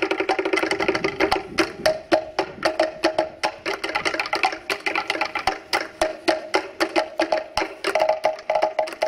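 Wooden slit log drums, three of them, played with sticks in a fast interlocking West African rhythm. Each stroke is a dry, hollow wooden knock, sounding at two main pitches, one low and one higher.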